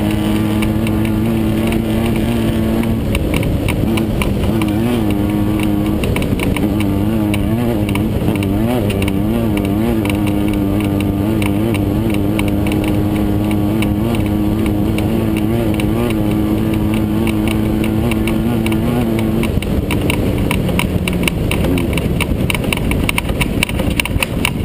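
Air-cooled Volkswagen engine of a Class 9 off-road race car running hard at high revs, its pitch wavering as the throttle comes off and on, with the chassis rattling and knocking over rough ground. The revs drop a little near the end.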